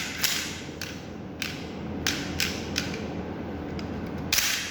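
Plastic shell-ejecting toy Glock's spring-and-piston mechanism clacking as it is worked: a series of sharp clicks, about six over the first three seconds, then a louder one near the end.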